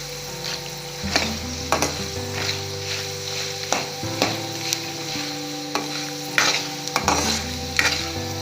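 Tempering of chana dal, dried red chillies, seeds and cashews sizzling in hot oil while being stirred, with irregular scrapes of the spatula against the pan.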